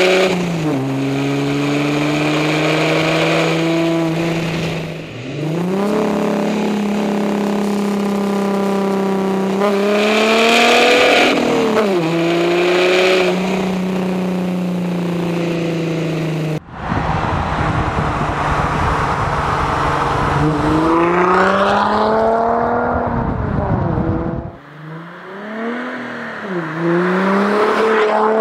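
Audi A4 B8 3.0 TDI V6 diesel running through a full stainless 3-inch turbo-back exhaust with the DPF removed, revving up and dropping back several times. About 17 seconds in it cuts to a section with a heavy low rumble under climbing revs, and about 24 seconds in to a few short rev blips.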